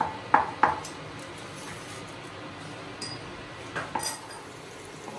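A metal spoon clinking against a small glass bowl while mustard seeds are spooned out: three sharp ringing clinks in the first second, then two more about four seconds in.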